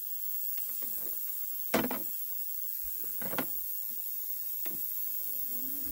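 A few sharp knocks and clatters of things being handled and set down on a workbench, the loudest about two seconds in. Near the end the booth's extractor fan switches on, its hum rising as it spins up.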